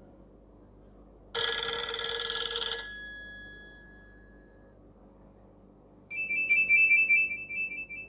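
Two short Nokia 5130 phone alert tones. About a second in, a bright shimmering chime starts suddenly and rings out for a few seconds. Near the end, a rapid warbling two-pitch beeping lasts about two seconds.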